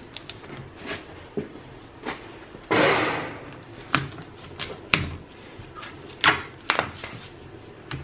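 Hand tools and gloved hands handling the insulated refrigerant tubing on the back panel of an ice machine: a short rasping scrape about three seconds in, followed by several sharp clicks and knocks.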